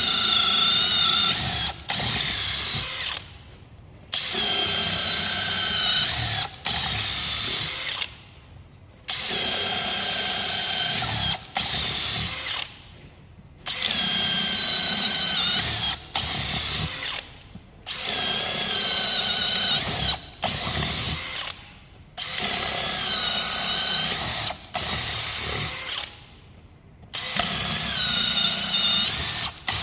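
Makita 40V Max XGT brushless cordless drill boring 20 mm holes through wood, one after another. The motor whines under load in repeated runs of one to three seconds, stopping briefly between holes, about a dozen times, with the pitch dipping and recovering as the bit bites.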